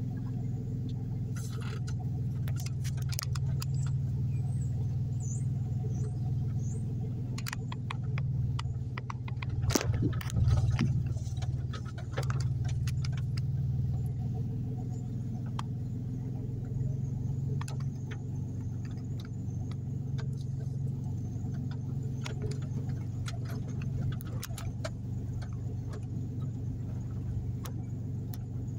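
Car cabin sound while driving slowly: a steady low engine and road hum, with scattered light clicks and rattles and a louder bump about ten seconds in.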